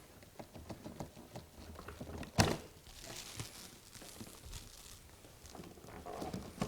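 Plastic handling clicks and knocks as the hose is unclipped and pulled from a Hoover Dustmanager upright vacuum, with one sharp knock about two and a half seconds in.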